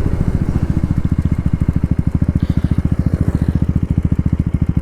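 KTM Duke 390's single-cylinder engine idling with the stock silencer removed, a loud, even, rapid exhaust beat with no throttle applied.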